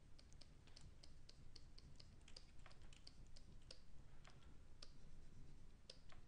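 Faint, irregular tapping of a Wacom tablet pen on the tablet surface, a few taps a second, as it makes quick sculpting strokes.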